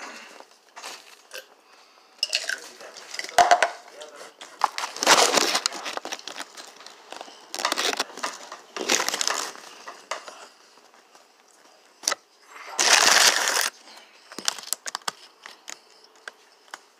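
Close-up eating sounds of fast food held right at the microphone: a string of noisy crunching and rustling bursts, the loudest about five, nine and thirteen seconds in, with small crackles between.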